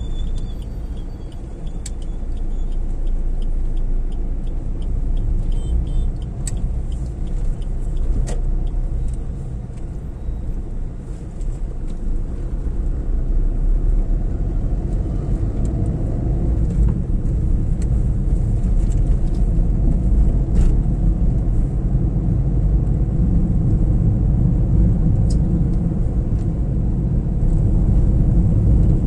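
Road and engine noise inside a moving car, a steady low rumble that grows louder about twelve seconds in as the car gathers speed on an open road. A faint regular ticking runs through the first few seconds.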